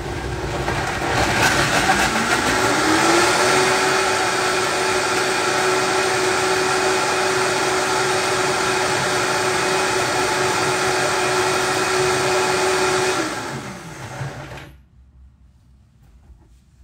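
Vitamix blender running with soaked macadamia nuts and dates in the jar: the motor speeds up over the first three seconds or so, holds a steady high speed for about ten seconds, then winds down and stops about fifteen seconds in.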